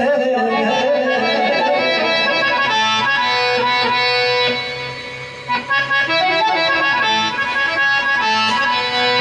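Instrumental music on a free-reed instrument: sustained chords and a melody line. It dips briefly about halfway through, then picks up again.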